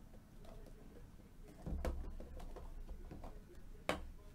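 Hands handling a small card box: soft rubbing and sliding with light taps, and one sharp click near the end.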